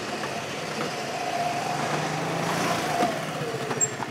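Motor scooter engine running as the scooter rides off, its note falling as it slows about three seconds in.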